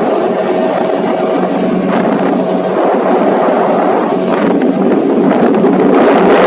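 Motorboat engine running steadily while the boat is under way.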